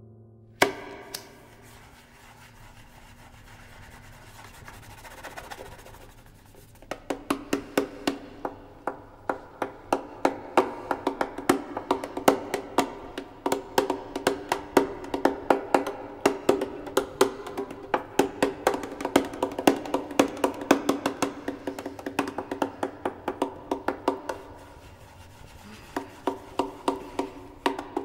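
Horror film score: a sudden hit, then a quiet sustained drone. About seven seconds in, fast, irregular clicking percussion starts over sustained tones. It drops away briefly near the end and then resumes.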